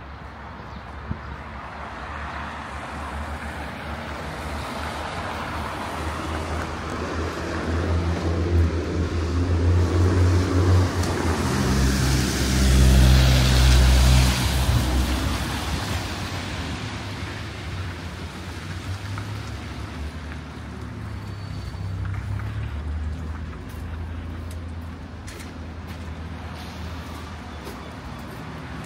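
Road traffic: a motor vehicle with a low engine note approaches, is loudest about halfway through, then fades away. A second, fainter vehicle swells and passes later.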